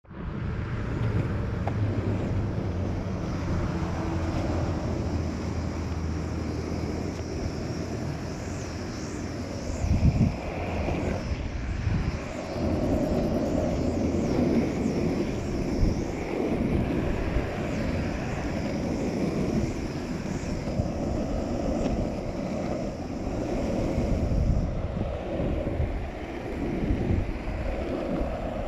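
Longboard wheels rolling fast on rough asphalt, a steady rumble mixed with wind buffeting the microphone. There is a brief louder thump about ten seconds in.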